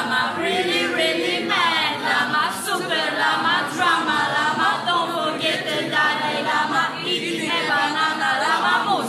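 A group of young men and women singing together without accompaniment, an action song led by one young woman.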